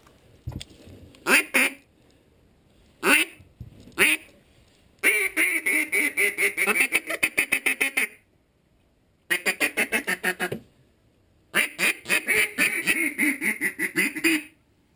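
Duck call blown in mallard quacks: a few single quacks, then three long runs of rapid, evenly spaced quacks at about seven a second, the calling hunters use to pull ducks toward decoys.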